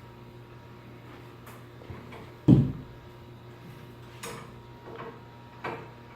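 Steel winding bars knocking in the winding cone of a garage door torsion spring as it is wound. One loud clunk comes about two and a half seconds in, followed by a few lighter clicks, over a steady low hum.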